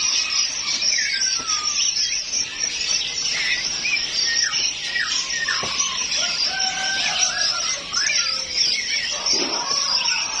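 Many caged songbirds chirping and whistling at once, a dense overlapping chorus of short high calls over a constant high shrill hiss of calls.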